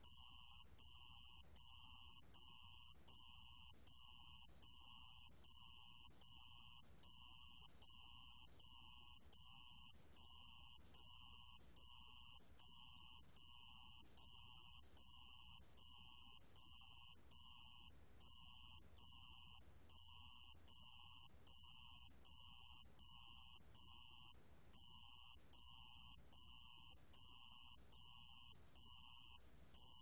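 모래방울벌레, a ground cricket, singing at 28 °C. It makes a high, pure chirp repeated a little more than once a second, each chirp about half a second long with short, even gaps between.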